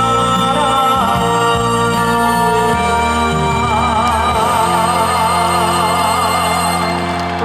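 Live band music with a singer, who holds a long note with vibrato through the second half. The low instruments cut off near the end as the song closes.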